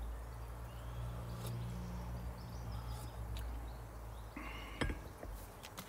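Outdoor background: a steady low rumble that fades near the end, with faint bird chirps and a short high bird note about four and a half seconds in.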